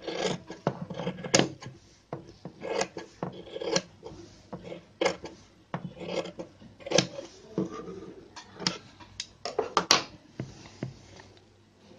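Long tailor's scissors snipping off excess cotton fabric along a freshly sewn seam: a run of short, irregular cuts and blade clicks.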